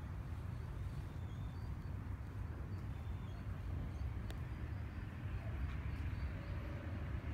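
Outdoor night background: a steady low rumble with faint, scattered high chirps and a single faint click about four seconds in.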